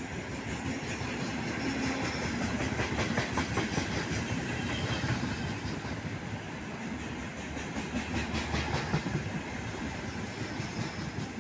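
Loaded freight wagons rolling past, a steady rumble with groups of wheel clicks over the rail joints.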